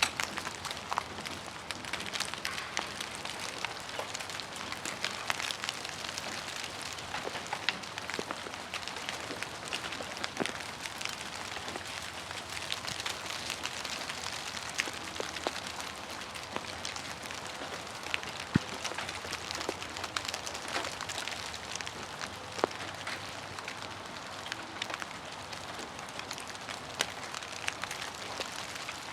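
Melting ice shedding from ice-coated tree branches, a dense, steady patter of many small pieces ticking and clattering down like hail, with an occasional louder single hit.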